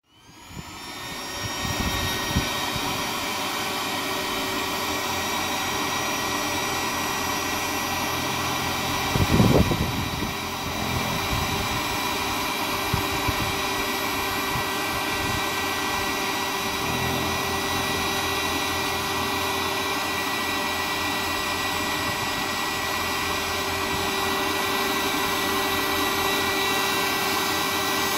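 Looftlighter electric charcoal lighter's fan blowing superheated air into lump charcoal to light it, a steady whining rush that comes up to speed over the first second or two. A brief low thump sounds about nine seconds in.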